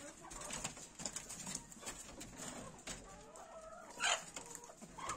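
Domestic fowl calling softly, with low clucking and cooing, and one short, louder call about four seconds in.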